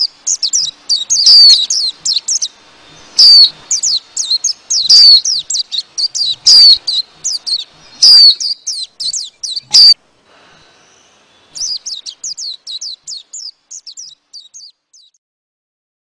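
White-eyes (vành khuyên) giving their flock-gathering call: rapid high twittering chirps, with a louder sweeping note about every second and a half. The calls break off about ten seconds in, a fainter run of chirps follows, and the sound stops about fifteen seconds in.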